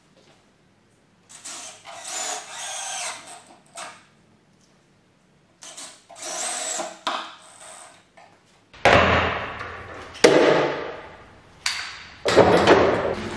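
Cordless drill running into pine shelving boards in two bursts of a couple of seconds each, with a steady motor whine. Then three loud thumps in the second half.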